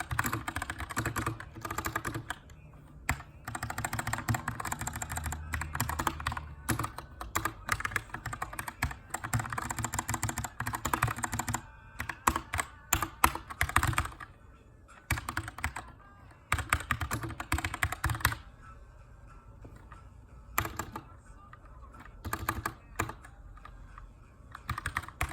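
Typing on a Keychron K2 aluminum-frame mechanical keyboard with Brown switches, in fast runs of keystrokes broken by short pauses. The longest pause comes about 18 to 20 seconds in.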